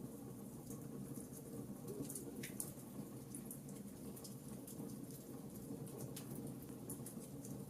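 Wood fire crackling softly: a low steady rush of flame with frequent small, sharp pops and snaps, one slightly stronger snap about two and a half seconds in.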